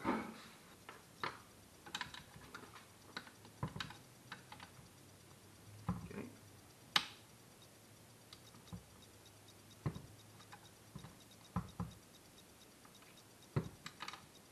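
Irregular small metallic clicks and taps as hand tools work on the metal frame of a Ford Explorer power seat track, with one sharper click about halfway through. A faint steady low hum runs underneath.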